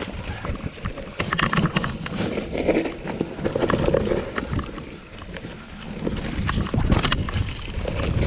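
Mountain bike riding fast down a dirt trail on loose, slippery leaf litter: tyre noise over leaves and roots with frequent sharp knocks and rattles from the bike, and wind rumbling on the microphone.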